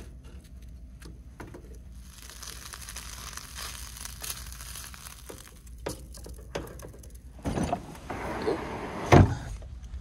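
Food sizzling in a frying pan on a propane camp stove, a steady hiss with the spatula clicking and scraping against the pan. A heavy thump comes near the end.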